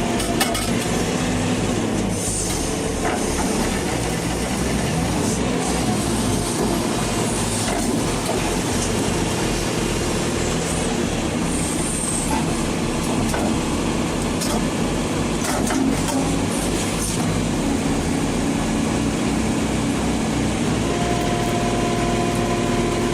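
Heavy machinery: a large engine running steadily with a rapid low throb and a steady whine over it, with a few faint clanks.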